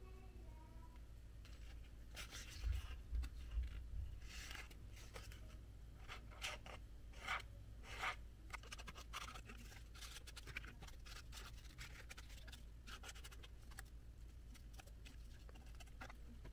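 Cardboard being worked by hand: a run of short, irregular scratching and scraping strokes, some in quick clusters and a few louder ones, over a faint steady low hum.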